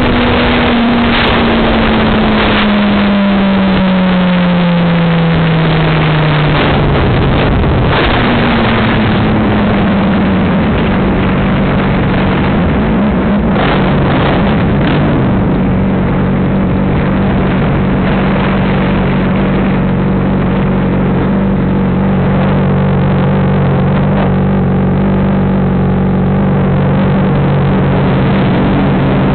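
Honda CBR600RR's inline-four engine winding down in pitch as the motorcycle slows, with wind rushing over the microphone. From about ten seconds in it runs steadily at low revs, and the wind rush thins out.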